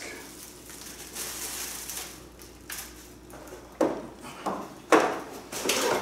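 Unboxing noises: a faint rustle of plastic wrap, then a few sharp knocks and scrapes of cardboard packaging being lifted from the box, about four and five seconds in.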